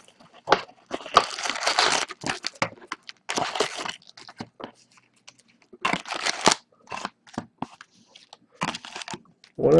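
Wrapped packs of hockey cards crinkling and a cardboard hobby box rustling as the packs are lifted out by hand, in irregular bursts with short pauses between them.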